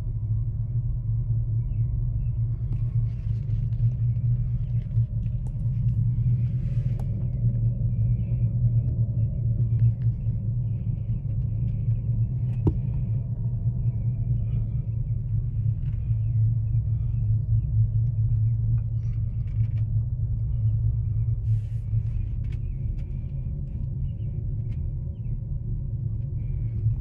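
Steady low rumble inside a moving gondola cabin as it rides up the mountain, with a few faint clicks and knocks.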